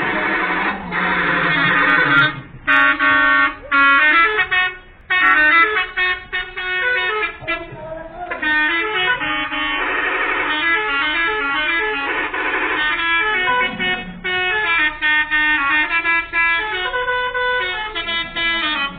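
A bus's multi-tone 'telolet' horn playing a quick tune of short stepped notes, with a few brief breaks between phrases.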